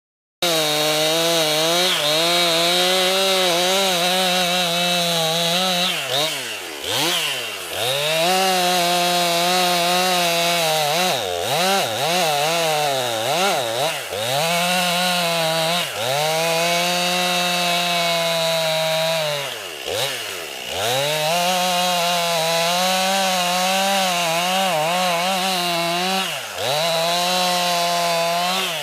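Two-stroke chainsaw running at high revs while cutting firewood. Its pitch drops sharply and climbs back up several times as the throttle is let off and opened again.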